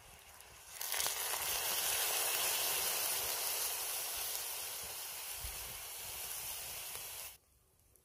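Beer poured into a hot pan, hissing and sizzling steadily; it starts suddenly about a second in and cuts off suddenly near the end.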